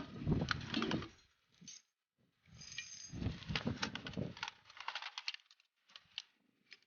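The tail of a loud report dying away in the first second, then a spell of light metallic clicking and rattling with a few last single clicks near the end.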